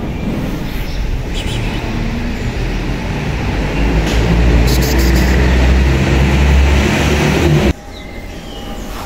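A motor engine running close by, growing louder, then cutting off suddenly near the end.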